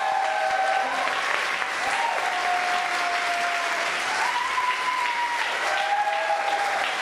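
Audience applauding at the end of a cabaret act, with several long, held whoops rising and falling over the clapping.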